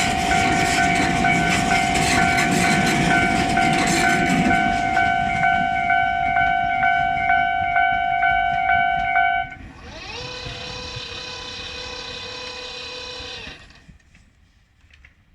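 Japanese railway level-crossing warning alarm ringing, a steady tone with a second tone pulsing about twice a second, over the rumble of a train that fades out about four seconds in. The alarm stops suddenly about nine seconds in; a fainter pitched tone then rises and holds for about four seconds before dying away.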